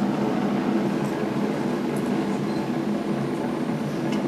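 Steady low rumble of the Space Shuttle Atlantis launch on the NASA broadcast, played over speakers in the room, while the orbiter climbs through maximum dynamic pressure.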